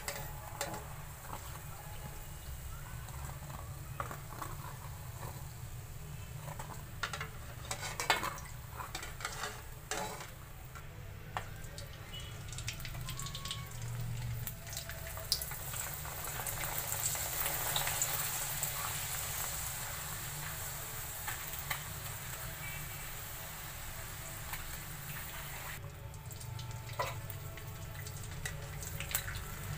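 A papad deep-frying in hot oil, sizzling steadily with scattered sharp crackles. The sizzle swells a little about halfway through.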